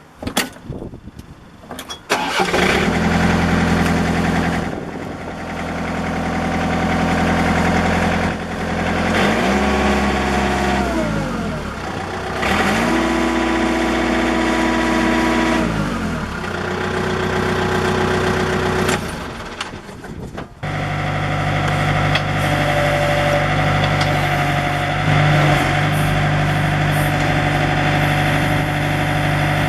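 John Deere 110 tractor-loader-backhoe's diesel engine cranking for about two seconds and catching, then running. Its speed is raised and lowered twice, the second time held high for a few seconds. It then runs steadily.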